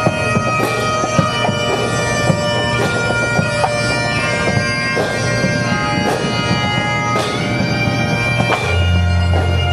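Bagpipe music: a steady drone under a melody that steps from note to note. A deep low hum comes in near the end.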